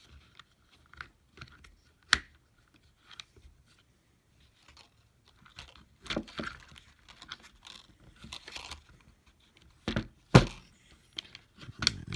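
Scattered plastic clicks and knocks as small screwdriver bits and drivers are handled and pressed into and out of a plastic holder and case, with a busier stretch of rattling and crinkling in the middle and a sharp knock near the end.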